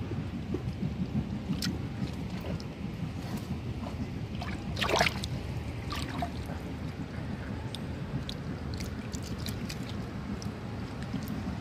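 Water sloshing and gurgling, with scattered small drips and splashes and one louder splash about five seconds in.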